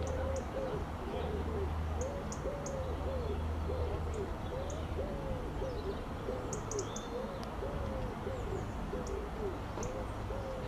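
A pigeon or dove cooing over and over, about one soft coo a second, over a low rumble that is strongest in the first half.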